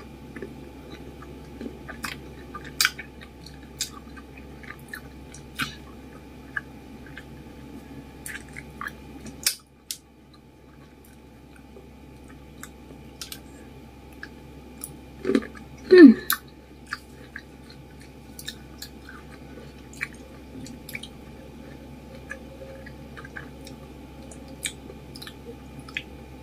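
Close-miked chewing of fresh cherries and grapes: soft, wet mouth clicks and smacks scattered throughout, with a louder bite and squish a little past halfway.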